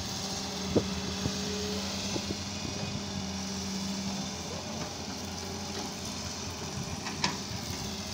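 Diesel engines of an excavator and farm tractors running steadily while the excavator loads soil into a tractor trailer, with a couple of brief knocks about a second in and near the end.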